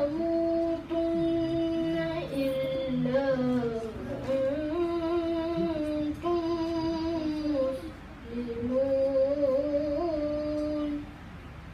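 A child's voice chanting Quran recitation in long, melodic held notes, phrase by phrase with short breaths between; the chanting stops near the end.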